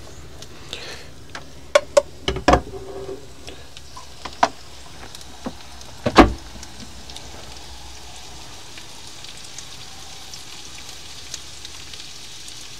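Meatballs and sliced onion frying in a pan with a steady sizzle, broken by a few sharp knocks, the loudest about six seconds in.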